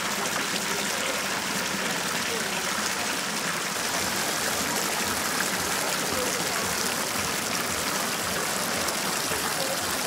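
Water from a public fountain's spouts pouring and splashing into its basin, a steady, even trickling rush.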